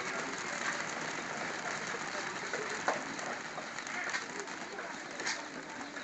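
Rice kernels popping in a wok of hot sand: a dense, steady crackle of small pops with a few sharper cracks, under the hiss of the sand and grains being swept around the pan with a bundle of sticks.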